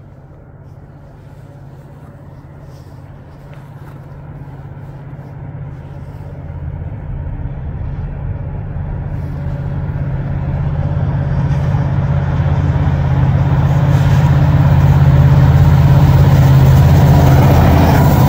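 EMD SD70M-2 diesel-electric freight locomotives, with two-stroke V16 engines, approaching at track speed with a steady low engine drone that grows louder throughout and is loudest as the lead units pass near the end.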